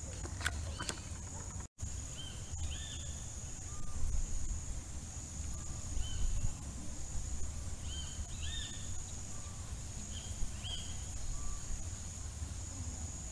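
Dusk outdoor ambience: a steady high insect drone, with a bird repeating short arching call notes every second or two over a low rumble.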